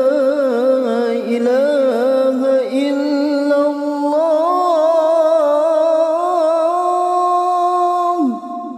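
A man's solo voice chanting the adhan, the Islamic call to prayer, through a microphone, drawing out the 'ashhadu an la...' line in a long ornamented melisma. The pitch winds up and down, then settles into one long held note that drops off sharply near the end, leaving a reverberant fading tail.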